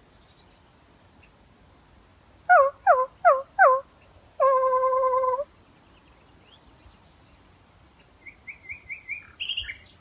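A woman imitates nightingale song with her voice: four quick falling notes, then one long held note. Near the end a nightingale sings faintly, a fast run of repeated piping notes followed by a few higher ones.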